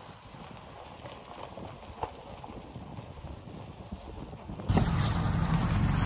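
A faint, uneven crunching rumble with scattered light clicks. About four and a half seconds in it cuts to a heavy-equipment engine running loud and steady close by.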